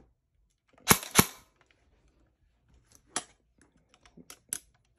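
SLR AK105 airsoft electric gun firing two semi-auto shots about a third of a second apart, each a sharp, loud crack. A few lighter clicks follow over the next few seconds.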